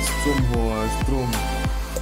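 Background music with a deep bass line and a regular drum beat under a sliding melodic line.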